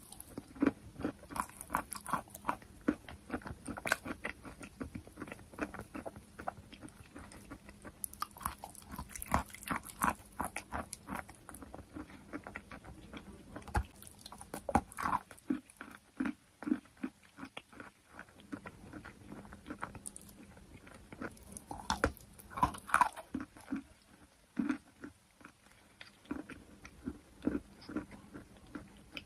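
Close-up crunchy biting and chewing of sweet chalk: a rapid, irregular run of crisp cracks and crumbling crunches, with a few short pauses between bites.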